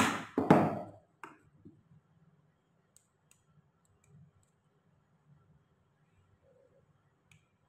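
Pliers set down on a workbench: a sharp clack, then a longer clatter about half a second later and a lighter click. After that only faint small clicks follow as the tiny metal parts of a rimless eyeglass frame are handled.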